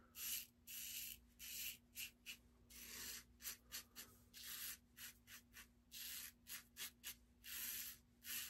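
Aylsworth Apex stainless steel double-edge safety razor scraping through lathered stubble in many short, quick strokes, about two or three a second, each a faint rasp.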